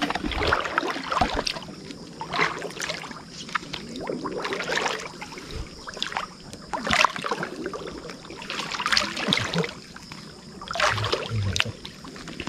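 Footsteps wading through shallow water, with a splash at each stride roughly every two seconds.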